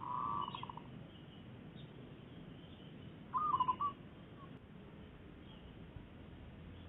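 Zebra doves cooing: one short rolling coo at the very start that breaks into a quick stutter, and a second, louder coo about three and a half seconds in. Faint high chirps of small birds can be heard in the background.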